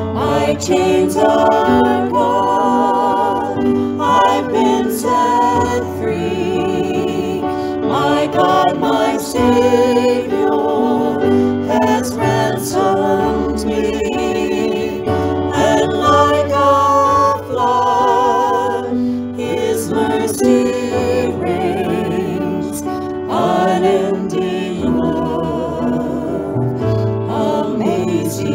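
A church praise team singing a worship hymn: several voices with vibrato over instrumental accompaniment holding steady low notes.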